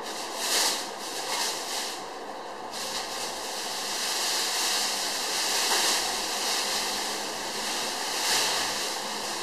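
Rustling and scraping of refrigerator packaging being handled, swelling and fading in waves.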